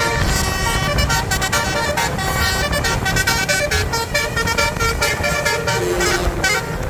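A coach's basuri telolet horn, a multi-tone musical horn, playing a quick tune of changing notes over the low rumble of the bus and road.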